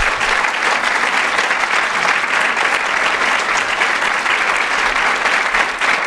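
Audience applauding, steady clapping that holds at the same level throughout.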